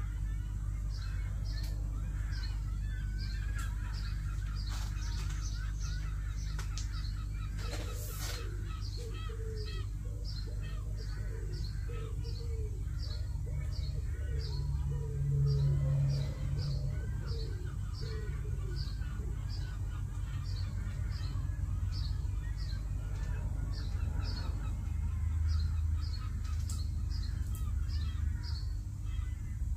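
Birds chirping and calling over a steady low hum, with a faint high tick repeating at an even pace throughout.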